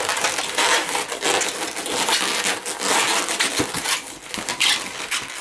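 Inflated latex twisting balloons being twisted and rubbed against each other in the hands: a dense run of quick scratchy rubbing noises that thins out after about four seconds.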